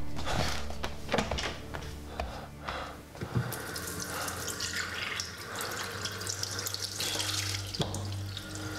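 A few knocks, then from about three and a half seconds in, a bathroom washbasin tap runs steadily into the basin while hands splash water onto a face.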